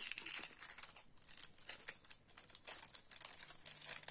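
Thin plastic zip-lock bag crinkling in a rapid run of crackles as it is handled and a flat acrylic diamond-painting ornament is pushed into it.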